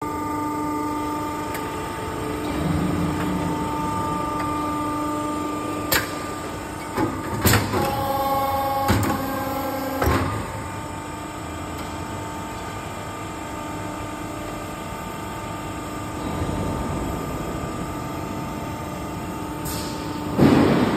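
Fire extinguisher cabinet roll forming machine running with a steady hum, with a handful of sharp metal clanks from its press station between about six and ten seconds in. A louder rush of noise comes near the end.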